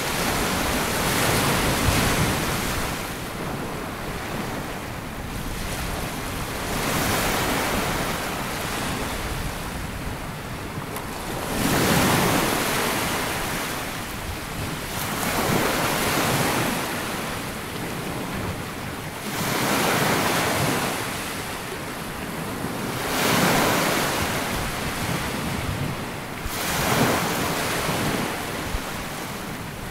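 Sea waves washing up a sandy beach and drawing back, each surge swelling and fading, about one every four seconds.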